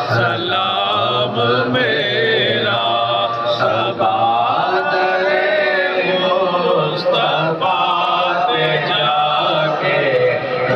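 Men's voices chanting a devotional Urdu recitation together, one man leading through a microphone, steady and unbroken.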